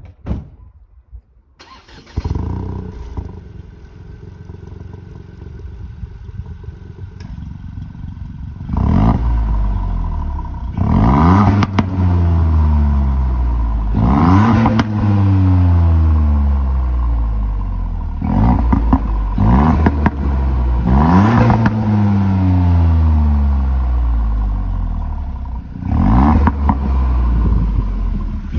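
Ford ST's engine and exhaust starting about two seconds in and idling, then revved in about six blips from about nine seconds on, each rising quickly in pitch and falling back to idle.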